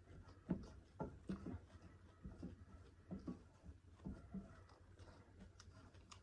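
Faint eating sounds: chewing with irregular soft clicks and smacks, a few every second.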